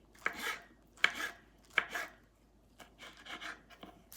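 Knife cutting a steamed elephant ear leaf and chickpea-flour roll (patra) into pieces. There are three firm cuts about three-quarters of a second apart, then softer, quicker cuts after about two and a half seconds.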